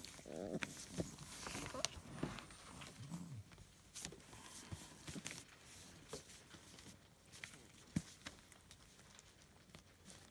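Young puppies making short whimpering and grunting calls in the first few seconds, with scattered clicks and taps as they move about.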